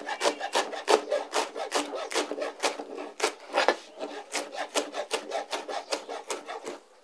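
Chef's knife slicing folded kale leaves into thin strips on a plastic cutting board: a quick, even run of cuts, about three or four a second, each one a crisp chop against the board. The cutting stops just before the end.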